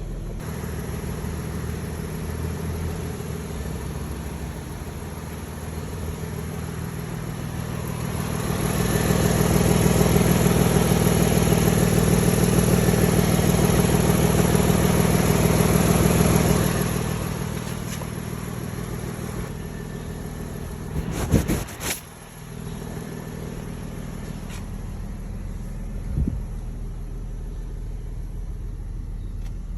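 Lexus engine and exhaust idling, then held at a higher, steady engine speed for about eight seconds before settling back to idle during an exhaust sound check. A short clatter comes about two-thirds of the way through.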